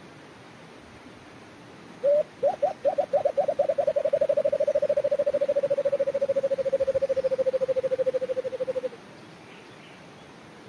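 White-eared brown dove call played through a speaker as a lure: a few spaced coos about two seconds in, quickening into a long, fast, even run of notes that stops about nine seconds in.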